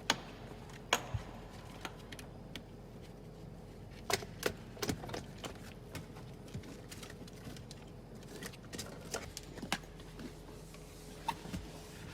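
Irregular small clicks and taps of a fish wire and wiring harness being fed through a hole in a car's interior trim, busiest about four to five seconds in and again near nine to ten seconds.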